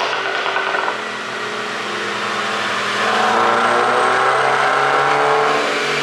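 Mercedes GLC SUV engine and exhaust, ECU-tuned for overrun pops and crackles. A little exhaust crackling in the first second, then the engine is revved, its pitch climbing steadily and getting louder from about three seconds in, falling back just before the end.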